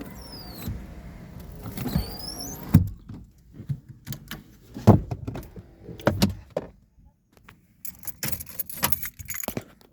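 Car's electric power windows closing: a motor whine that rises in pitch, stopping with a knock about three seconds in. Then scattered clicks and knocks inside the car.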